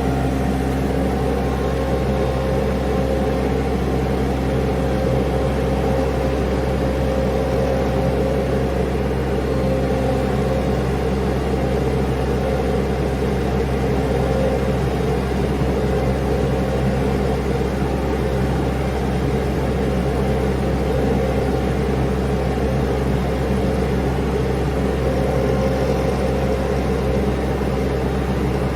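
Mini skid steer's engine running steadily under the operator, with a constant low hum and drone and no marked revving.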